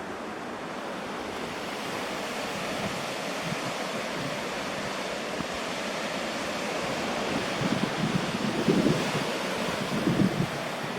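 Steady rush of ocean surf mixed with wind on the microphone, with a few louder low gusts near the end.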